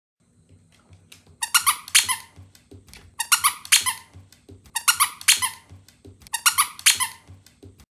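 Rubber squeaker in a plush Woodstock dog toy squeaking in four quick bursts of several squeaks each, about every second and a half, as a toy poodle shakes it in its mouth.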